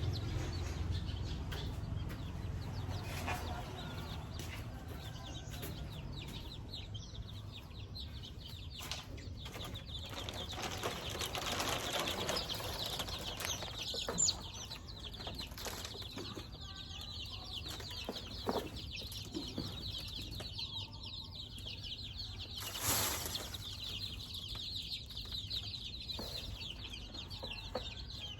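A flock of chickens feeding in a poultry house: wings flapping, constant high-pitched peeping and clucking, and scattered pecking and scratching clicks, with a sharp click about 14 seconds in and a louder flurry about 23 seconds in.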